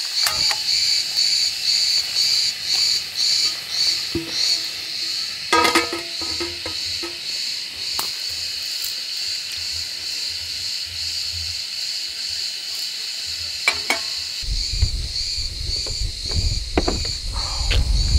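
Insects chirping in a steady, pulsing chorus, about two pulses a second. There are a few sharp clicks about six seconds in and again a little before a low rumble of wind on the microphone comes in late on.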